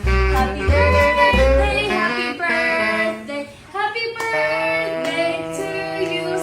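Music with a high singing voice; a heavy bass beat drops out about two seconds in, and a held chord comes in about four seconds in.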